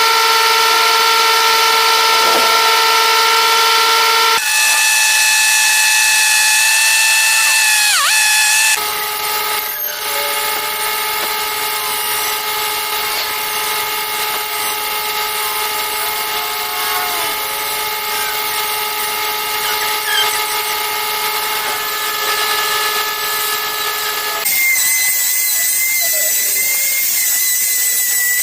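An electric power tool's motor running with a steady whine. Its pitch jumps abruptly to a new steady note about four, nine and twenty-four seconds in.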